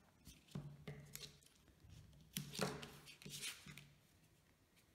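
Double-sided tape and card stock being handled: a scatter of soft clicks, rustles and taps as the tape is pulled from its roll and pressed onto the card.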